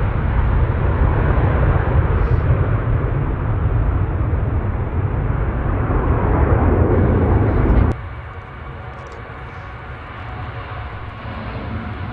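Jet airliner engine noise, a loud rumble with a heavy low end, which cuts off suddenly about eight seconds in, leaving a much quieter background.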